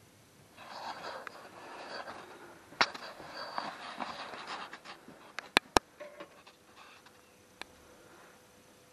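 Handling noises at a workbench: a rustle lasting about four seconds, then two loud sharp clicks a quarter second apart and a fainter click later.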